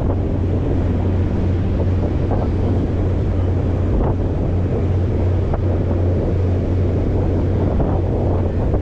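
Wind buffeting the microphone over the steady low drone of a fishing boat's engine, with water washing against the hull.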